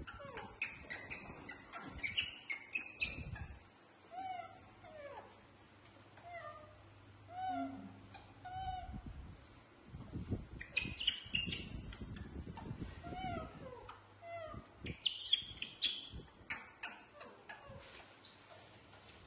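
Baby macaques calling: many short coos and high-pitched squeaks, some bunched together and some spaced apart. A plastic bag crinkles in bouts as fruit is handled.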